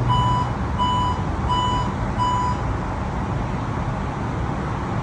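Electronic beeping inside a rail car: four short, even, high beeps about 0.7 s apart that stop about two and a half seconds in. They sound over the steady low hum of the stopped train.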